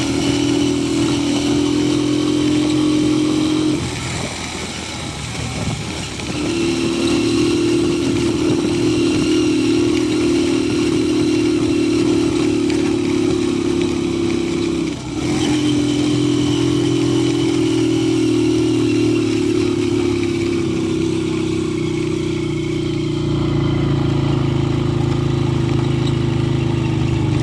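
A motor vehicle's engine running steadily with a droning hum. It drops away briefly twice, about four and fifteen seconds in, and settles into a lower pitch near the end.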